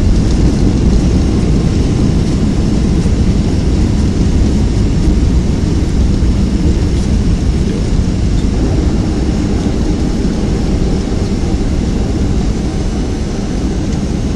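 Cabin noise of a Boeing 757-200 rolling on the runway just after landing: a loud, steady low rumble of engines and wheels, easing a little about halfway through as the jet slows.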